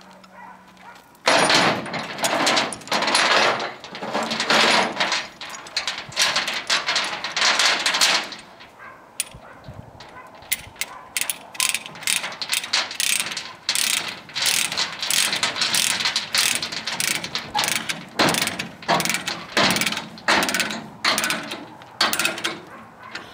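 Ratchet chain load binder being worked to tighten a load chain: its pawl clicks in bursts as the handle is swung back and forth. The clicking is dense and loud for the first several seconds, then comes in shorter, sparser groups.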